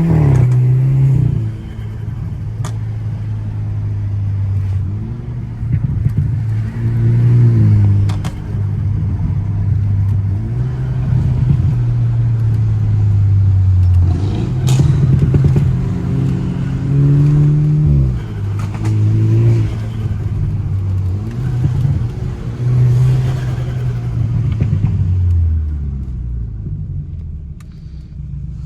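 Car engine pulling hard through the gears, the revs climbing and dropping again and again as it shifts. Near the end it settles to a lower, quieter steady run.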